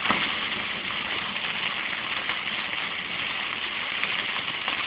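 Heavy rain falling on a moving car's roof and windscreen, mixed with tyres running through water on the road: a steady hiss heard from inside the car.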